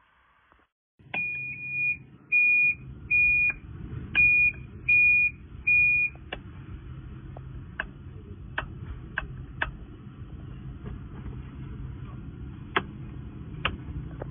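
Electric auto-rickshaw's dashboard beeper sounding six short beeps of one high pitch, just under a second apart, over a low steady hum. After the beeps stop, a handful of sharp, irregular clicks.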